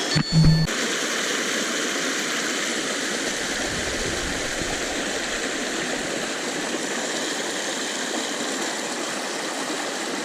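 Flowing river water rushing steadily. In the first half-second there is a brief, louder low hum.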